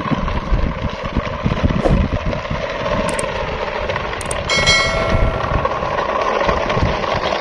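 Plastic toy truck and its train of trailers rolling over rough asphalt as it is pulled on a string, a steady gritty rolling noise with irregular low thumps. About three and four seconds in, two sharp clicks, then a bell-like chime rings for about a second.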